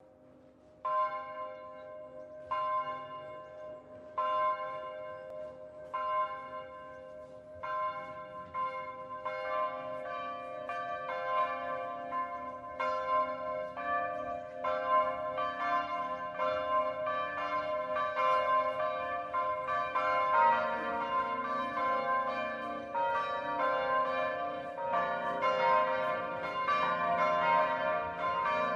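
Church bells ringing: single strokes about every one and a half to two seconds at first, then more bells join from about ten seconds in, building to a dense, overlapping peal.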